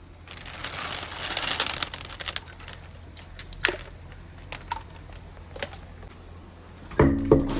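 Glass marbles clattering down a marble run: a dense rush of many clicks for about two seconds, then a few single clicks, and two loud knocks with a short hollow ring near the end.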